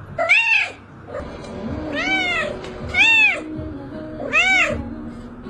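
A cat meowing four times, "mama"-like calls that each rise and then fall in pitch.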